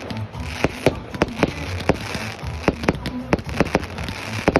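Fireworks going off: a rapid, irregular run of sharp bangs and cracks, two or three a second, over a steady low background rumble.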